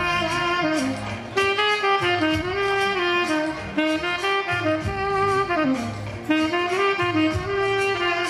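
Saxophone playing an Afrobeat melody in short phrases over bass and drums, with notes that step and slide between pitches.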